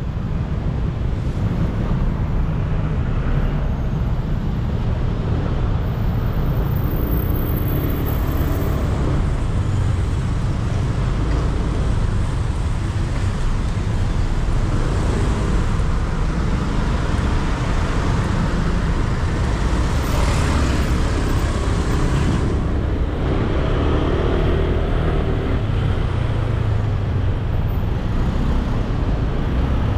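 Street traffic heard from a moving motorbike: a steady, deep rumble of engines and road noise. A louder rush swells up about twenty seconds in and drops away sharply a couple of seconds later.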